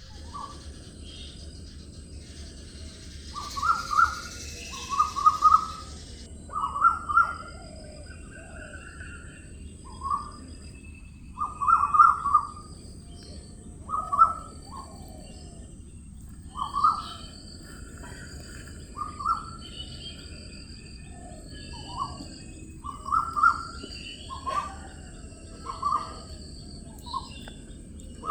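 Birds singing: short, repeated calls every second or two, with fainter high chirps in between and a soft hiss during the first few seconds.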